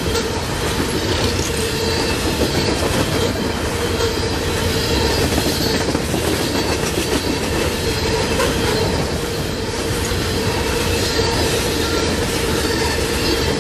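Loaded Norfolk Southern coal cars rolling past close by: a steady rumble of steel wheels on rail, with a steady wheel squeal running under it.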